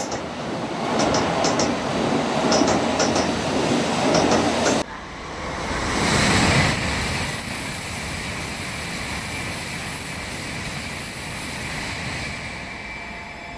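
N700A Shinkansen trains running past station platforms. First a steady rumble with a few light wheel clicks, which cuts off abruptly about five seconds in. Then a rushing train noise swells, holds steady and fades near the end.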